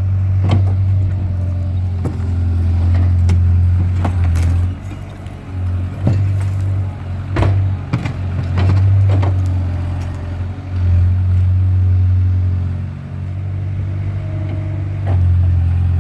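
Skid steer engine running hard, its steady low drone swelling and easing with the load, with repeated sharp knocks and clanks as it works over broken concrete and block rubble.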